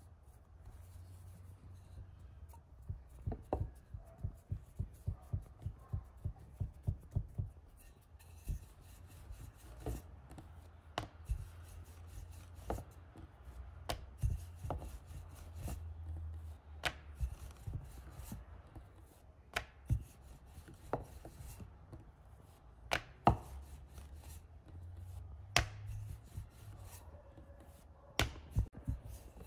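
Dough being flattened and rolled out with a wooden rolling pin on a board. A few seconds in there is a steady run of knocks, about two a second, then scattered knocks and taps as the pin works back and forth and is lifted and set down.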